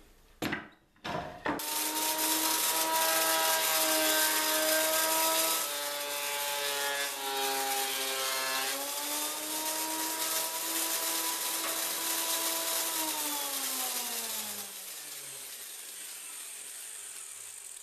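Benchtop thickness planer starts up with a motor whine and the noise of its cutterhead taking dried glue off a glued-up hardwood board. Its pitch shifts a couple of times as the board feeds through. About 13 seconds in the motor is switched off and winds down with a falling whine, leaving a quieter hiss. A couple of knocks come in the first second and a half.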